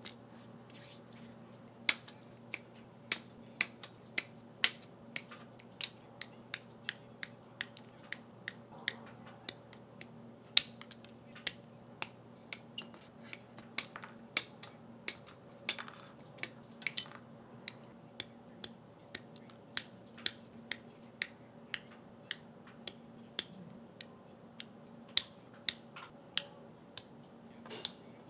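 Sharp plastic clicks and snaps, roughly two a second, from assembling a Gunpla plastic model kit: parts being cut from their runners with nippers and pressed together. A faint steady hum lies underneath.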